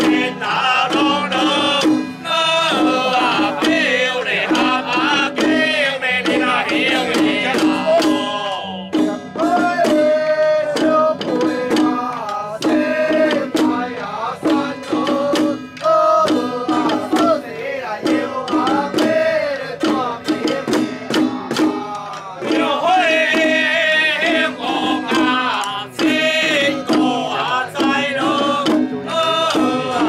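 Taiwanese temple ritual music: a wavering, sliding melodic line carried over fast, dense drum and gong strikes, with no break.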